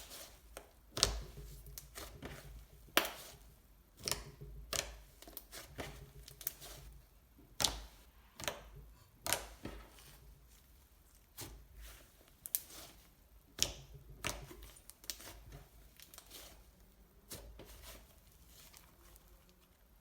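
Clay slime with foam beads being squished and stretched by hand, giving irregular sharp clicks and pops.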